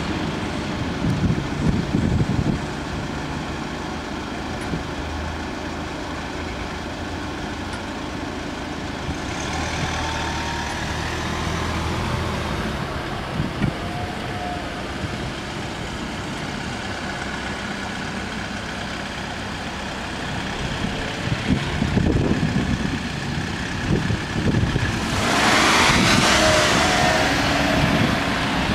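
Road traffic: cars pulling away and driving over the level crossing after the barriers lift, engines and tyres running. One vehicle passes close near the end and is the loudest moment.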